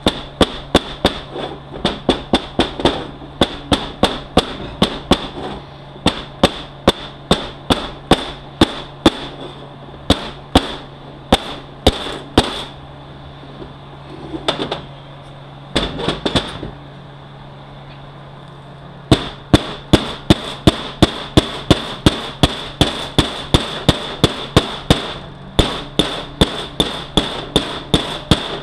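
Hammer blows on a bushing driver, driving a tight bushing into a 6L80E transmission hub: quick, even strikes, about two to three a second. The hammering stops for about two seconds past the middle, then goes on.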